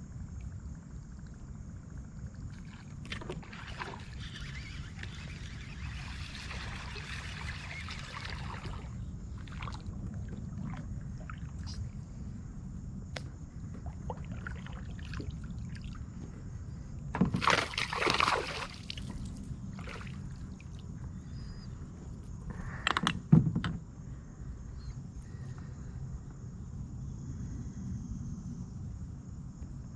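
Water sloshing and lapping around a small fishing boat over a steady low rumble, with two louder splashy bursts about halfway through and a little later.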